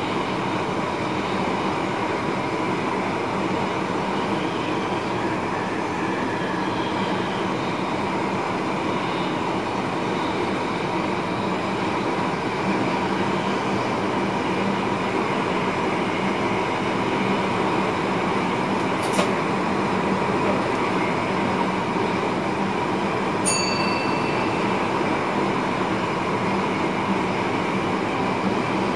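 Train running, heard from inside the driver's cab: a steady rumble of wheels on rail with a few faint steady tones, a sharp click about 19 seconds in and a brief high ping a few seconds later.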